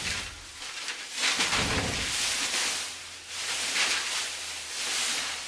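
Thin plastic sheeting rustling and crinkling as it is pulled down and handled, in several swells of a second or so each.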